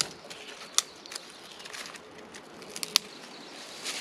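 Dry twigs and dead branches rustling and snapping as they are gathered and broken by hand, with sharp cracks a little under a second in and again about three seconds in.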